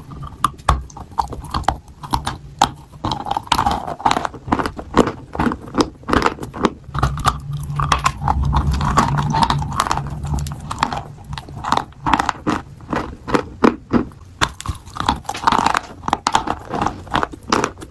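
Biting and chewing a chunk of chalk: a dense run of crisp crunches and sharp snaps as pieces break off and are ground between the teeth.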